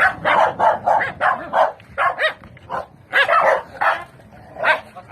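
Dog barking repeatedly in short, high yaps, about a dozen in quick succession with a brief pause near the end.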